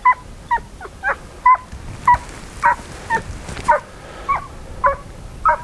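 A hunting hound giving voice on a scent trail: short, high yelps, about two a second, each falling slightly in pitch.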